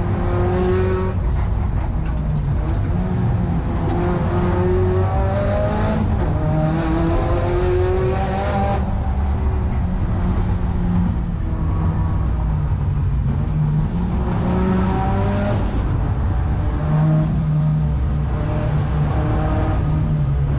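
Car engine heard from inside the cabin, driven hard: it revs up in pitch under acceleration about five times, dropping back between pulls as the gears change or the throttle lifts for corners.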